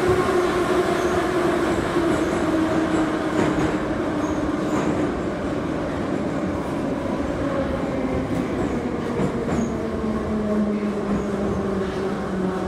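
81-717/714 metro train running between stations: traction-motor whine over wheel and track noise, the whine falling steadily in pitch as the train slows.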